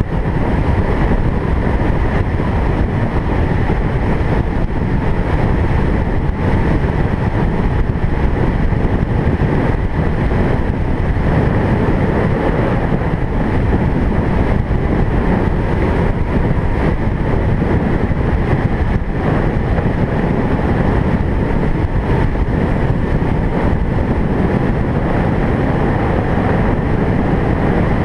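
A vehicle driving at a steady speed: continuous, even road, engine and wind noise with no changes.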